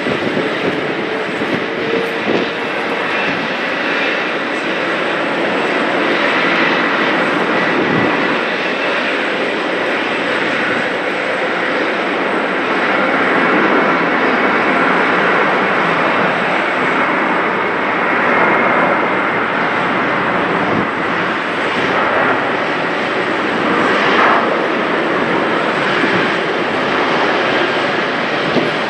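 Jet engines of a Boeing 777-200LR, twin GE90 turbofans, running at taxi power as the airliner taxies: a steady rush with a faint high whine, swelling a little over the first dozen seconds and then holding.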